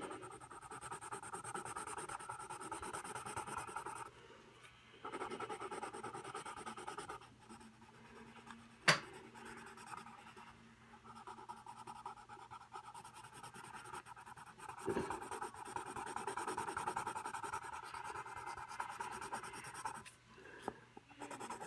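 Graphite pencil shading on paper: fast back-and-forth scratching strokes in several stretches, with pauses between them. A single sharp tap about nine seconds in.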